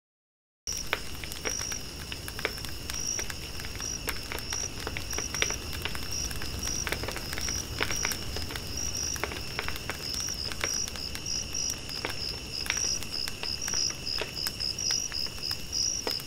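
Insects trilling steadily at a high pitch, the top note pulsing on and off irregularly, with scattered sharp clicks and crackles throughout; the sound starts just under a second in.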